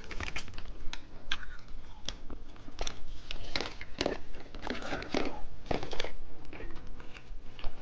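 Plastic candy wrapper being handled and torn open, with irregular crinkles and crackles throughout.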